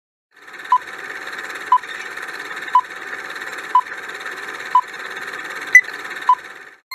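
Quiz countdown-timer sound effect: a sharp tick about once a second over a steady hiss, the last two ticks coming closer together near the end before it cuts off.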